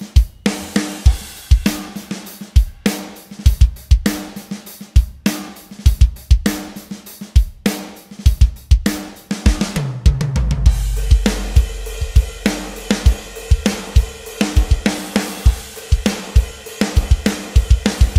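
Background music built on a drum-kit beat with kick, snare and hi-hat; about ten seconds in a quick drum fill leads into a deep held bass note, and the beat carries on.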